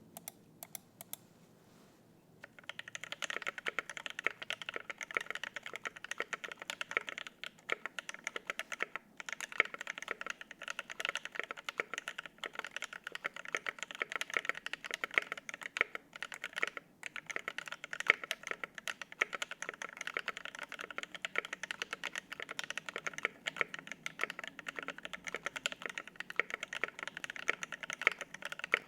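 Typing on a custom 75% mechanical keyboard with lubed, filmed Alpaca linear switches on a 1.5 mm brass plate, no case foam, and GMK keycaps. A few lone keystrokes come first, then fast continuous typing starts about two seconds in, with a few brief pauses.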